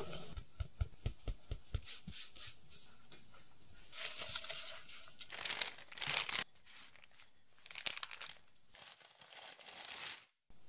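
Soft rapid tapping, about five a second, as flour is sifted through a metal mesh sieve. It is followed by parchment paper crinkling and rustling in bursts as dough between the sheets is pressed flat with a wooden rolling pin.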